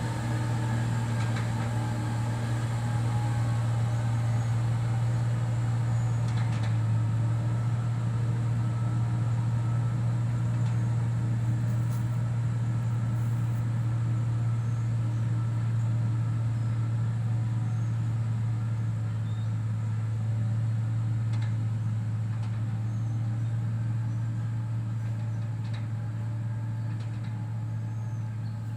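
Heavy diesel road-construction machine engine running steadily, a continuous low drone.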